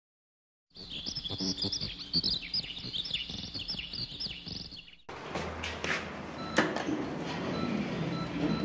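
Birds chirping in quick, rapidly repeated calls for about four seconds. Then, after a sudden change, a round metal doorknob and its lock are worked from outside, giving sharp metallic clicks and rattles over a low steady hum.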